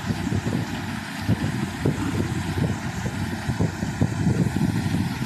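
Multi-crop threshing machine running while threshing pearl millet earheads: a steady mechanical rumble crowded with irregular knocks and rattles.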